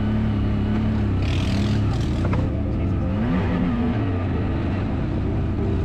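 ATV engine running, its pitch rising and falling with the throttle, with a brief rushing noise about a second in.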